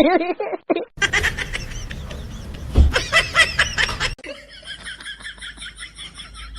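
Laughter in short snatches, cut between clips. Near the end comes a quieter, fast run of high chirping pulses.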